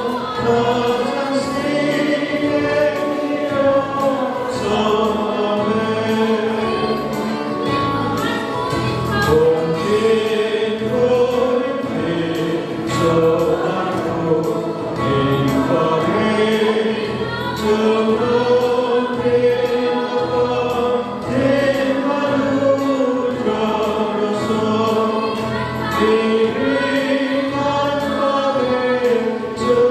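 A choir of many voices singing a Christian hymn together, with held, slowly moving melodic lines.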